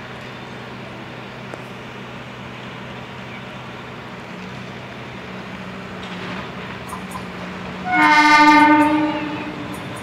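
Horn of an approaching Indian electric multiple-unit train: one long blast of about a second and a half, starting about eight seconds in, over a faint low hum.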